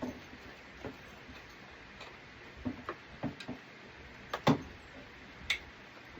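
Irregular light clicks and clinks of hand tools on metal parts, about half a dozen, with the loudest knock about four and a half seconds in.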